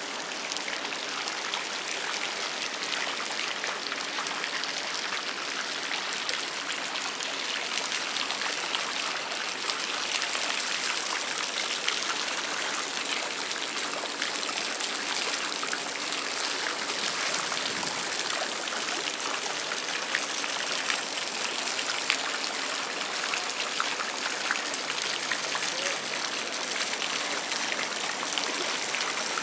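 Steady splashing of running water.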